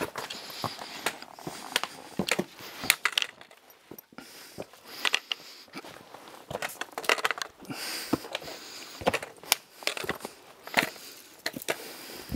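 Hiking boots crunching and scuffing down a steep, rough forest trail: an irregular run of steps and scrapes on rock and forest litter, some sharper crunches standing out.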